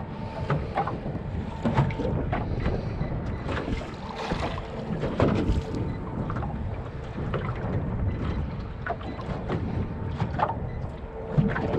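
Choppy water slapping irregularly against the hull of a small open fishing boat, with wind buffeting the microphone.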